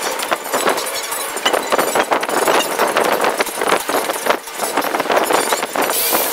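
Hand sanding or scraping on a fiberglass boat hull: rapid, irregular rough strokes. About six seconds in, a steady high hiss joins them.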